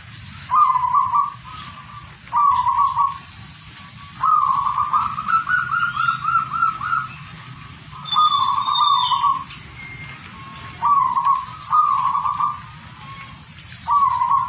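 Zebra dove (perkutut) singing: a series of cooing phrases at the same low pitch, about seven in all, with one longer rolling, trilled phrase about four seconds in.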